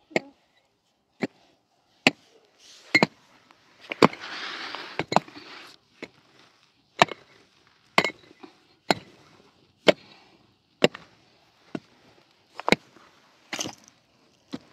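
A short-handled hammer striking stony soil and rock in steady blows, about one a second and some fifteen in all, breaking up the ground for digging. About four seconds in there is a brief rustling noise.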